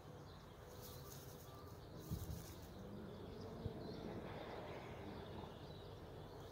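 Faint outdoor background: a low rumble with brief hissy patches, and two soft thumps about two and three and a half seconds in.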